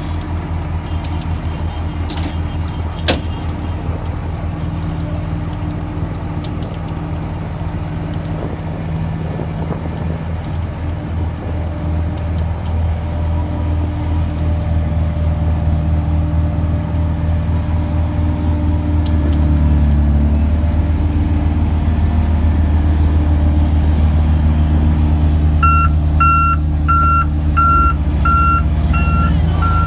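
Heavy diesel road-construction machinery running steadily and growing louder. Near the end a reversing alarm starts beeping about twice a second.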